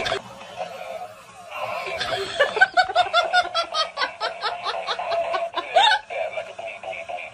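A person laughing hard in a quick run of repeated bursts, starting about two seconds in and stopping about six seconds in.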